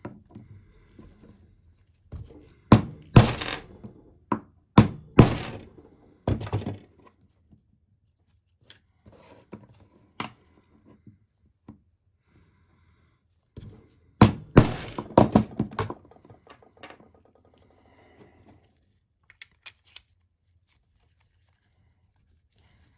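Repeated hard knocks and thuds from working on the wiper linkage parts, in two bursts of several blows each. The first burst starts about two seconds in, the second about fourteen seconds in, with a few light taps between.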